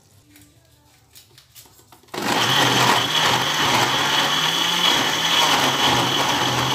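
German Chef countertop blender switched on about two seconds in and running steadily at full speed, puréeing egusi (ground melon seeds) with onions and salt into a thick paste, with a steady high whine over the motor. A few light clicks of handling come before it starts.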